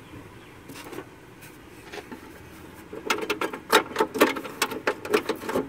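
Metal parts of an air-cooled VW Beetle engine's tinware clicking and rattling as a hand works them back and forth, a quick run of about four clicks a second starting about three seconds in, after faint handling noise.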